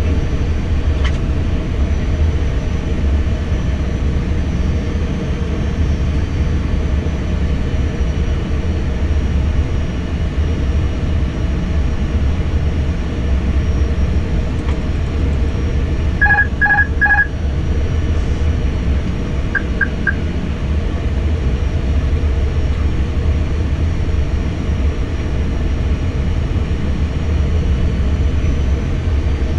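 Steady rush of airflow and engine noise on an Airbus A320 flight deck during the landing approach. About sixteen seconds in comes a short run of electronic beeps, and a few seconds later three quick short beeps.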